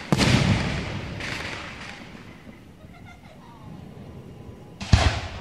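Fireworks going off: a loud boom just after the start that rumbles away over about two seconds, then a second sharp boom near the end.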